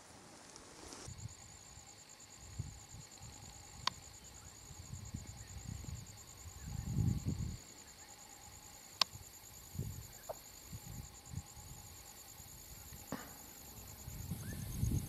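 An insect trilling steadily at a high pitch from about a second in, its pitch dropping slightly near the end, over irregular low muffled rumbles that are loudest about seven seconds in and again at the end, with a few sharp clicks.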